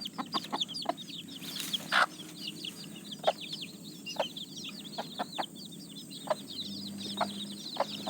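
Day-old chicks peeping without a break, a dense run of short, high, falling peeps, over the short clucks a mother hen gives now and then as she leads her brood.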